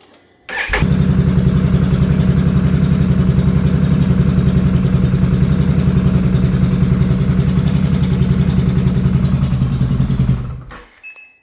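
Can-Am Renegade 1000XMR's V-twin engine starting about half a second in, idling steadily with an even pulse, then shutting off near the end. The front cylinder is misfiring because its spark plug boot is arcing through to the engine block.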